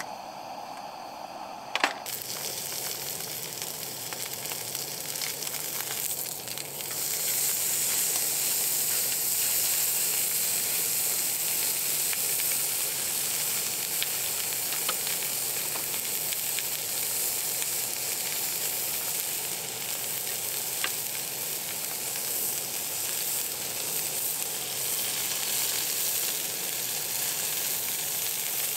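Food sizzling in a hot pan: a steady sizzle that starts right after a sharp click about two seconds in and grows louder around seven seconds in, with a few faint pops.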